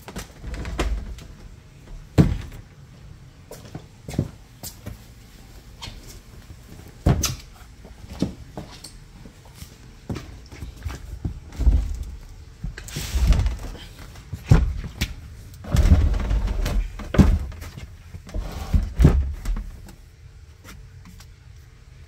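Irregular knocks, thumps and scrapes from a phone camera being carried and handled on the move, with a longer rustling scrape about thirteen seconds in. A faint steady hum runs underneath.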